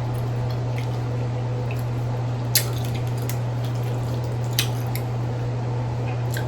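Sauce-covered crawfish being cracked and peeled by hand: wet squishing with a few short sharp cracks of shell, over a steady low hum.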